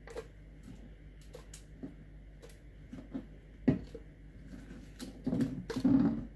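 Chopped onion and bell pepper pieces scooped by hand off a cutting board and dropped into a plastic blender jar: scattered light knocks, one sharper knock a little past the middle, and a rustling scrape near the end.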